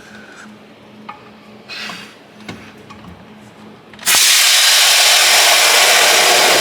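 A few light clicks and knocks of parts being handled, then about four seconds in a loud, steady hissing rush starts abruptly and keeps going.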